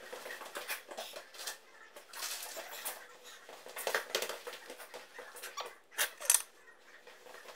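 Irregular scraping, rustling and tapping, as of a person moving about and handling things close by, with sharper knocks about four and six seconds in.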